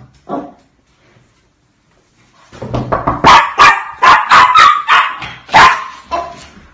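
Small dog barking and yipping excitedly, a short yelp at the start and then, from about two and a half seconds in, a rapid string of loud, sharp barks several a second, greeting its owner arriving at the door.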